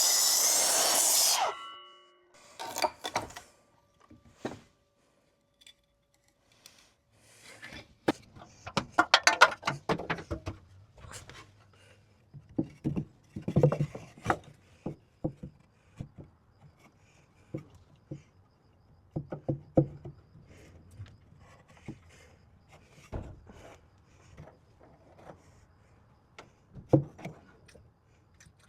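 A loud rush of noise opens and cuts off after about a second and a half, leaving a brief ringing. Then come scattered knocks, thunks and rubbing of wooden boards being handled and fitted overhead, with a faint low hum from about seven seconds in.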